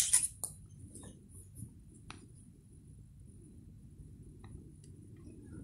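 A few light knocks and clicks from someone moving about close to the microphone, the sharpest right at the start, over a low steady room rumble.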